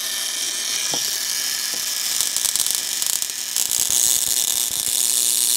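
Handheld high-voltage zapper buzzing steadily with its output turned up, with a rapid crackle of electrical discharge from about two seconds in to about five seconds in.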